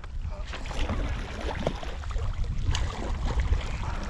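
Lake water sloshing and splashing against the side of a canoe and around a pike held in the water alongside, with wind rumbling on the microphone.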